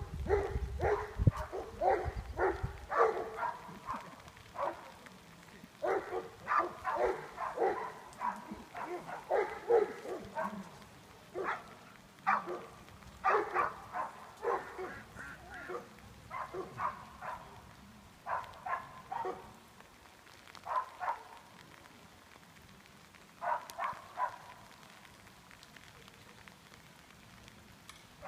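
A dog barking in repeated bursts with pauses between them. The barks come thickly in the first half and thin to a few short bursts later on.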